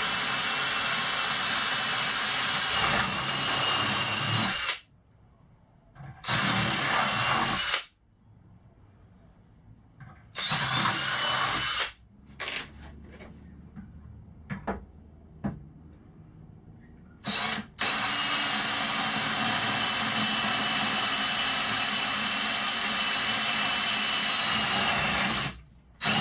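Electric power drill drilling mounting holes for a boat seat pedestal base. It runs for about five seconds, then in two short runs and a few quick blips, then steadily for about eight seconds near the end.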